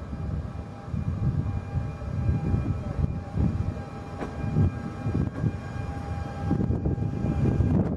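Alstom Régiolis (B 85000 series) regional multiple unit rolling slowly into the station: a low, uneven rumble of the train with a thin steady whine over it, growing a little louder near the end as it comes close.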